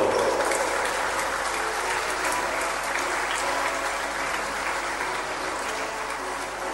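Crowd applauding in a sports hall, the clapping easing off gradually.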